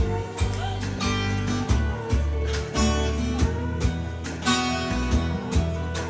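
Acoustic guitar strummed steadily in a song, over a deep bass line.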